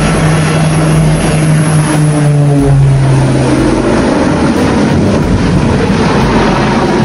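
Twin-engine propeller aircraft's engines running loudly in a steady drone, the pitch dropping a step about three seconds in.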